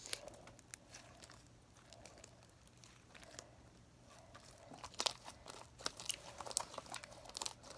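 Sticky glue slime being kneaded by hand, giving soft clicks and crackles: faint at first, then busier and louder over the second half.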